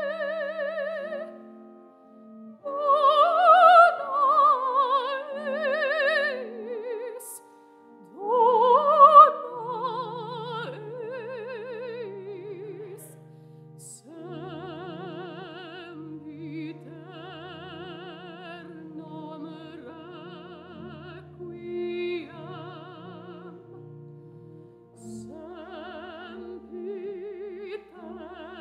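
Solo soprano singing a slow classical piece in operatic style with wide vibrato, over sustained accompaniment notes. Her loudest, highest phrases come a few seconds in and again about nine seconds in.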